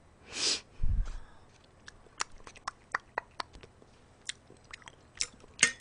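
Close-miked chewing: a run of small, irregular mouth clicks and smacks as food is eaten, with a short hiss near the start and a low thump about a second in.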